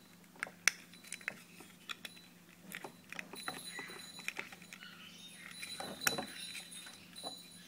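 Light clicks and rattles of a small plastic transmitter-module case being handled and worked open to pull out its circuit board, with scattered sharp clicks, the sharpest about six seconds in.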